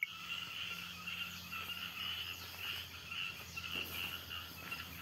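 A chorus of frogs calling, in rapid pulsing bursts that overlap steadily, with a faint steady low hum underneath.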